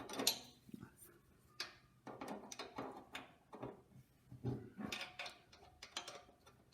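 Faint, irregular metallic clicks and scrapes of a spanner being fitted to and turned on the spring-loaded bolt of a tractor's fuel tank.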